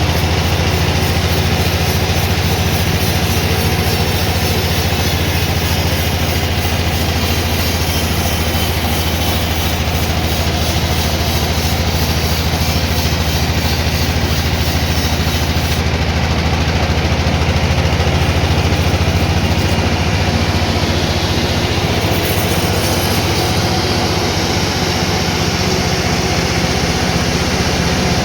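Sawmill machinery running steadily: a heavy engine's low, even drone.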